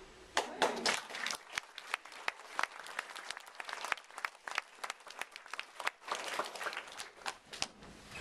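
Scattered applause: many hands clapping unevenly, light and sparse, fading out near the end.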